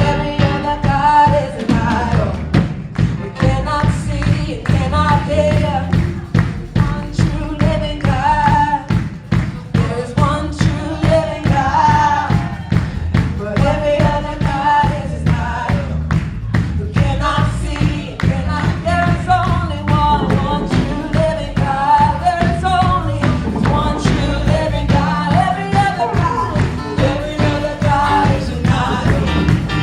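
Live worship band playing an upbeat song with singing over a strong bass and a steady driving beat.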